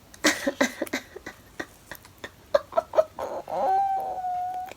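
Clicking and tapping of packaging being handled and unwrapped, then a high, drawn-out squeal of delight that rises and is held on one pitch for about a second near the end.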